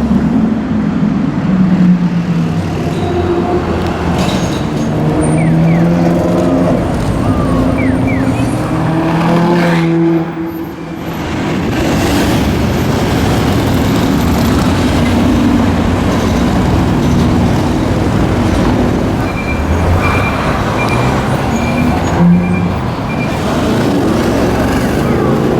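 Supercar engines revving and accelerating in city traffic, loud throughout, with the engine pitch rising and falling through gear changes. A brief drop in level comes about ten seconds in, and a run of five short high beeps sounds near the end.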